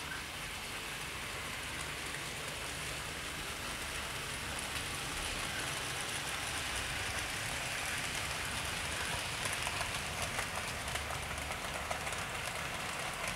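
A 00 gauge model train running on the track: a steady hiss of wheels and motor that grows louder as the train comes closer, with light clicks over the rail joints near the end.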